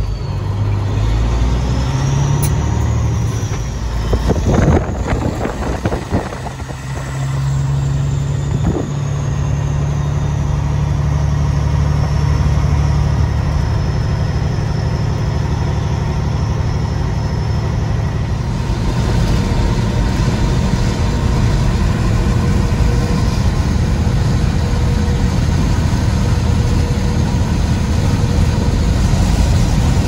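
Peterbilt semi truck's diesel engine heard from inside the cab, its note changing in steps over the first several seconds as the truck pulls away, with a few knocks around four to six seconds in. It then settles into a steady drone, and road and wind noise swell about eighteen seconds in as the truck cruises.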